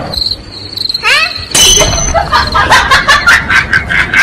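A cricket-chirping sound effect, the awkward-silence gag, added in the edit. About a second and a half in, a different loud edited sound with quick repeated beats takes over.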